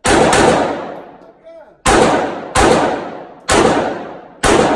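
Sig P365 9mm pistol firing six shots: a quick pair, then four more spaced roughly a second apart, each shot trailing off in a long echo.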